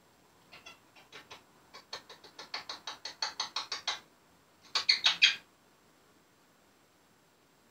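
Pet parrot making a rapid run of short squeaky clicks, several a second, that grows louder over about three seconds, then after a short break a louder quick burst of about five squeaks.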